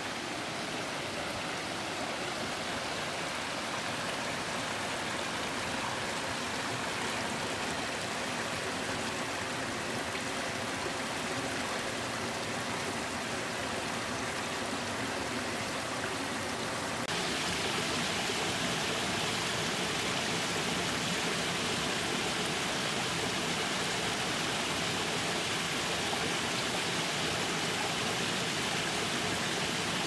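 A small waterfall splashing over rocks into a pool, a steady rush of water. A little past halfway it switches abruptly to a louder, brighter rush.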